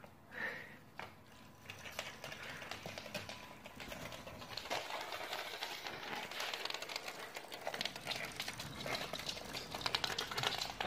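Puppies' claws clicking and scrabbling on a hardwood floor as they scuffle, a dense run of rapid clicks that grows busier and louder from about two seconds in.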